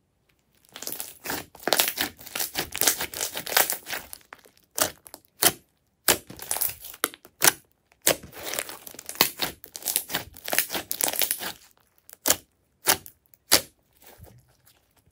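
Hands kneading and squeezing thick glossy slime, with dense runs of wet crackling and popping as air pockets in it burst. Between the runs come a few single sharp pops, the last ones near the end.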